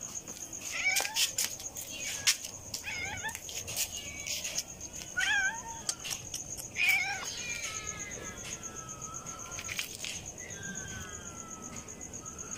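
Stray cat meowing repeatedly for food: several short meows, the later ones fainter.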